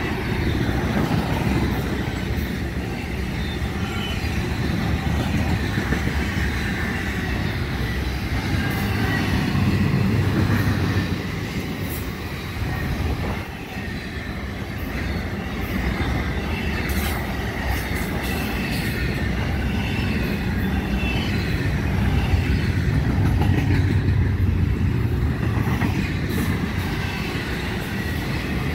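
Florida East Coast Railway intermodal freight cars rolling past, loaded with trailers and containers. Steel wheels on rail make a steady heavy rumble, with a faint high wheel squeal now and then.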